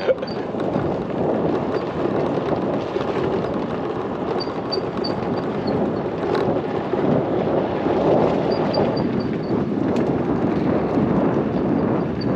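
Wind buffeting the microphone: a steady, rushing noise with no clear pitch and no let-up.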